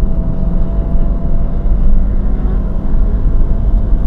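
Mazda Miata's four-cylinder engine running hard at track speed, under a heavy, steady low rumble of wind and road noise in the open cockpit. The engine is running hot and is down on power.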